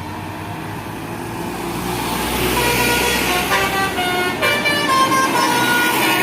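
Tour bus's telolet basuri musical horn playing a tune of short notes that step from pitch to pitch, starting about two and a half seconds in. Beneath it the bus's engine runs, growing louder as the bus draws near.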